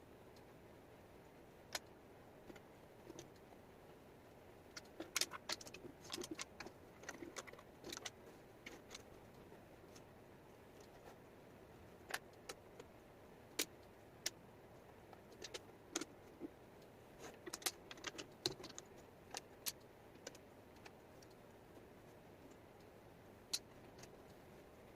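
Small wooden jigsaw puzzle pieces clicking and clattering as they are handled and set down: irregular sharp clicks coming in quick clusters with quieter gaps between, over a faint steady hiss.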